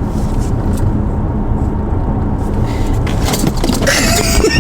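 Steady road and engine noise inside a moving car's cabin, with a few faint clicks and a brief rustle of movement near the end.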